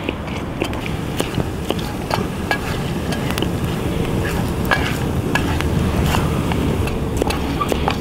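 Mushrooms frying in butter over a high campfire: a steady sizzle with irregular pops and crackles scattered through it.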